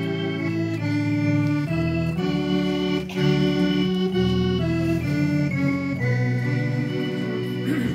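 Two piano accordions playing a hymn melody in sustained chords, the notes changing about every half second to a second.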